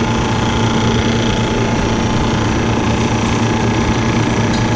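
Cold-storage condensing unit's reciprocating refrigeration compressor running with a steady hum, its refrigerant charge topped up to the right pressure.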